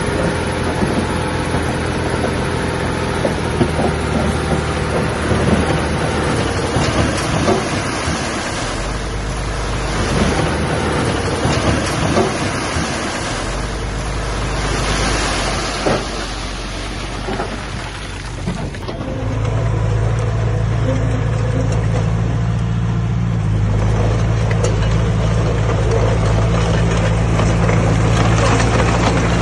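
Diesel engines of heavy earthmoving machinery running, with scattered knocks and clanks. About two-thirds of the way through the sound changes abruptly to a steadier, low engine drone.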